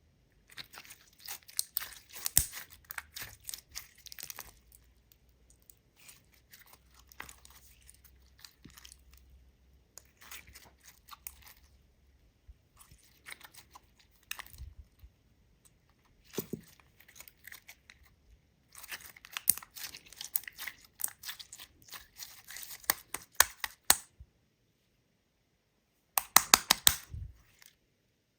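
Clear glitter slime being squished, stretched and folded by hand: runs of sticky crackling and small popping clicks, with quieter stretches between.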